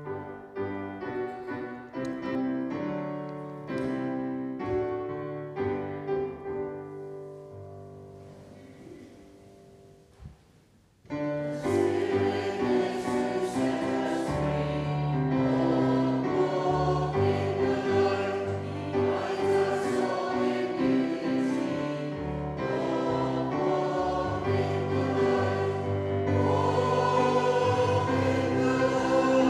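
An electronic keyboard plays the introduction to a hymn. About eleven seconds in, the congregation starts singing the hymn with the keyboard.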